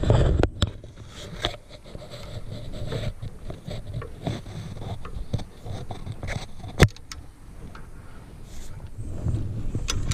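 Scraping, rustling and knocking of a dog and hands moving against a metal dog box and its slatted gate as the dog is put in, with one sharp click about seven seconds in.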